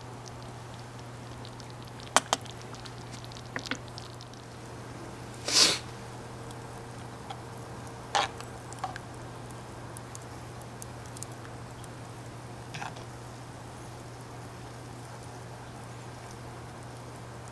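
A metal ladle scraping and knocking against a cast-iron Dutch oven as thick curry is scooped and poured over rice in a cast-iron skillet: a few separate clinks and wet scrapes, the loudest about five and a half seconds in, over a low steady hum.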